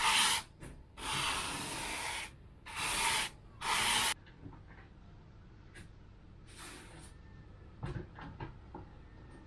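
Four scratchy strokes in the first four seconds as a brush spreads epoxy resin over a foam pad, then a few light knocks near the end as the pad is lifted and handled.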